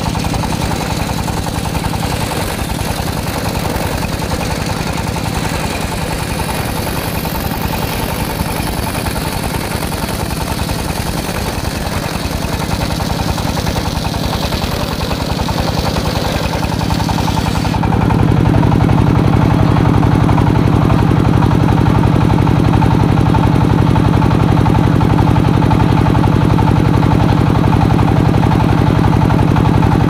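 Engine-driven sawmill circular saw ripping a long timber beam: a steady engine drone under the rasp of the blade cutting through wood. About two-thirds of the way in, the sound changes abruptly to a louder, lower drone with much less hiss.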